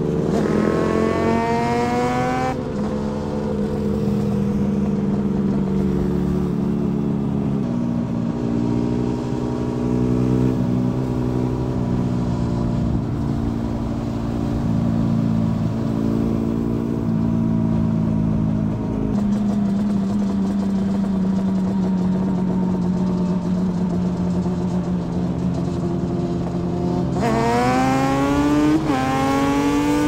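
Motorcycle engine accelerating with a rising note and a gear change about two and a half seconds in. It then runs at a steadier, lower note for most of the time, and revs up hard again through another gear change near the end.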